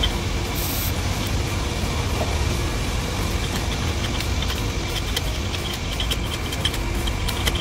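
Steady low drone of engine-driven machinery running, with faint light clicks of metal parts being handled.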